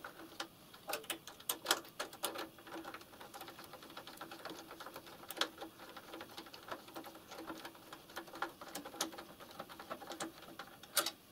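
Irregular light metallic clicks and taps from hand work with a small metal tool on the mechanical lubricator and its copper pipe fittings, with sharper clicks about two seconds in and near the end.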